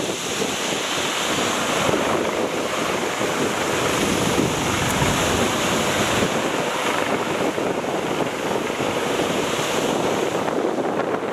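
Wind blowing hard across the microphone, with surf breaking on a rough, choppy sea; a steady rush of noise.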